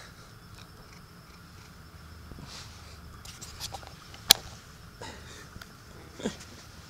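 A tabby cat sniffing right at the microphone and brushing its fur against it, with faint rustles and one sharp knock about four seconds in as it bumps the recording device.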